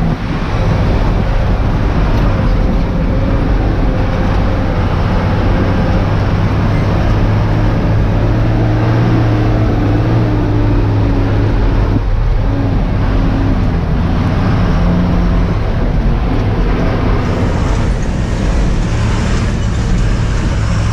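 Tata tipper truck's diesel engine running while driving, heard from inside the cab: a loud, steady low drone whose pitch shifts a little as engine speed changes.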